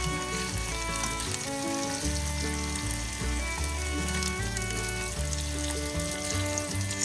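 Food sizzling in a frying pan, with fine crackles throughout, under background music with a steady bass line.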